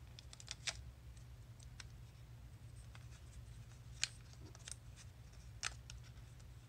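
Light clicks and taps of fingers handling a plastic watercolour travel palette and its paint pans. There are a few scattered sharp clicks, the loudest about four seconds in and again near six seconds, over a steady low hum.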